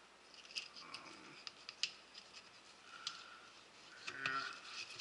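Fillet knife slicing through a bluefish along its backbone: faint, scattered crisp clicks and scrapes as the blade works against skin and bone.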